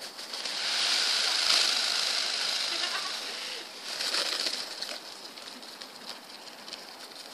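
White (leucistic) Indian peacock shivering its fanned train in courtship display, a fast, dry rustling rattle of the feathers. It swells about half a second in and lasts about three seconds, then comes again in a shorter burst about four seconds in.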